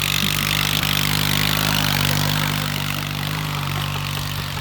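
Straight-piped riding lawn mower engine running at a steady speed, easing off slightly about three seconds in.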